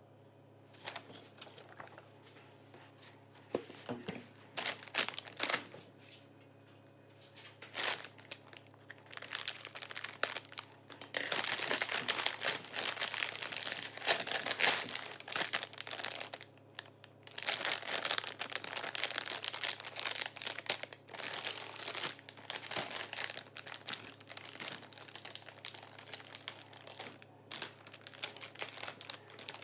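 Plastic food packaging crinkling as it is handled: scattered crinkles at first, then a stretch of dense, continuous crinkling a little before the middle, then irregular crinkling to the end.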